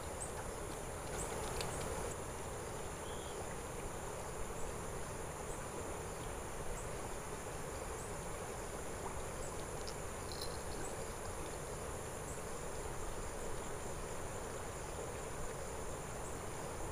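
Steady high-pitched insect drone over a soft, even rush of flowing river water, with a few faint clicks.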